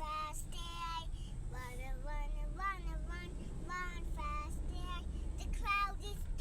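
A young child's high voice singing or chanting in short bending phrases, over a steady low rumble.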